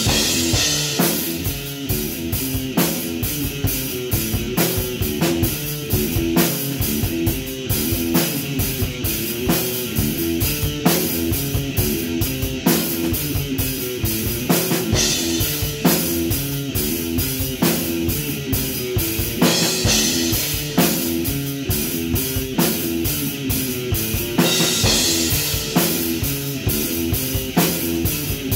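Electric guitar and drum kit jamming rock: a repeating distorted guitar riff over a steady drum beat, with cymbal crashes every few seconds.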